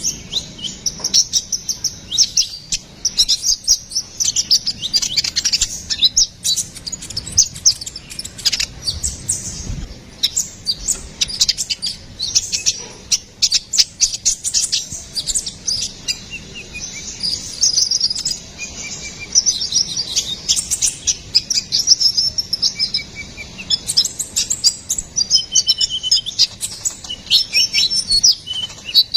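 Olive-backed sunbird (kolibri ninja) singing hard: rapid, high-pitched chirps and twittering trills in quick unbroken runs, some sliding down in pitch.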